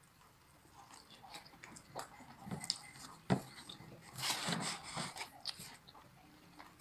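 A person biting into and chewing sauced Korean-style fried chicken, quiet and close, with scattered wet mouth clicks. There is a sharp click a little past three seconds and a short noisy rush soon after four seconds.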